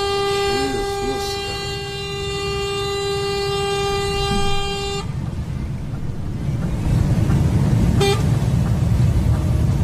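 Truck horn sounded in one steady blast for about five seconds, warning the truck ahead that keeps drifting into the oncoming lane; it cuts off, leaving the truck's engine and road noise, which grow louder, with one short horn tap about eight seconds in.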